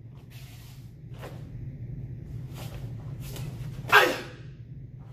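A karate practitioner's short, sharp breaths with the strikes of a kata, then one loud kiai shout about four seconds in that falls in pitch, over a steady low room hum.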